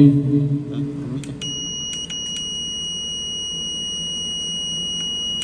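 Steady high-pitched beep from the built-in buzzer of a HAUDIO EX-8 digital karaoke processor, starting about a second and a half in and holding. It sounds while the MIC+ key is worked and the mic level rises, a key-press beep the unit is programmed to give. A few light clicks come just before it.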